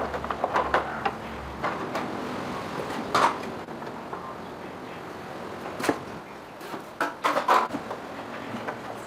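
Motorcycle parts and hand tools being handled during repair work: scattered sharp clinks and knocks of metal, a cluster of them near the end, over a steady background hiss. A low hum stops early on.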